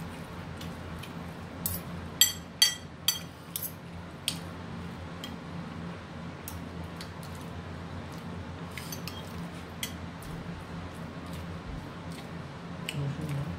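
Steady low hum of a kitchen range-hood vent fan running over a pot on the boil. A quick run of sharp clicks about two to four seconds in, and fainter taps later, as fingers pick rice and fish off a ceramic plate.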